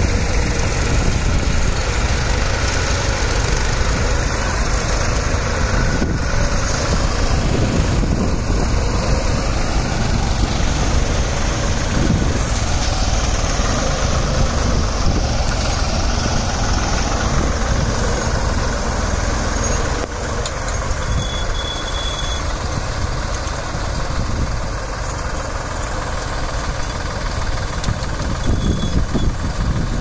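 Tractor engines running steadily while pulling mouldboard ploughs through soil, a dense continuous engine noise that drops a little in level about twenty seconds in.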